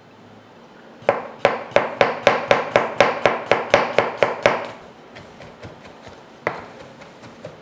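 Chef's knife finely chopping garlic cloves on a plastic cutting board: a fast, even run of knocks, about five a second, starting about a second in and lasting some three and a half seconds, then one more single knock near the end.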